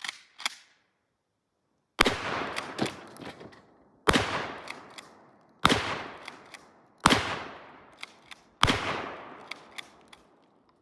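A 12-gauge shotgun fires five shots of game target loads, about a second and a half apart, each blast followed by echo dying away. Two light clicks come just before the first shot.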